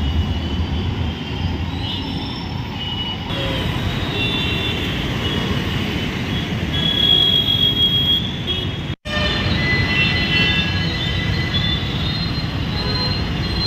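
Congested city road traffic: a steady rumble of idling and creeping car, auto-rickshaw and motorbike engines, with short horn toots sounding through it. The sound cuts out for an instant about nine seconds in.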